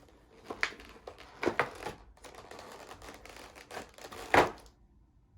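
Cardboard box packaging being handled and slid out: rustling and scraping with scattered sharp clicks, and one louder crackle near the end.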